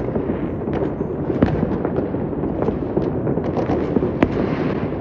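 Many fireworks going off at once across a city: a continuous rumble of overlapping booms with sharp cracks scattered through it, several a second.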